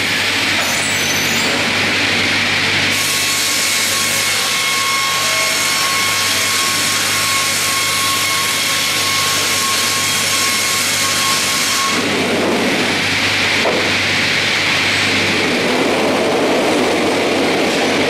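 StrojCAD D9 double-bladed circular sawmill running and sawing a spruce log, over a steady low machine hum. From about three seconds in, the blades cut with a steady high whine that stops abruptly about twelve seconds in, leaving the machine running.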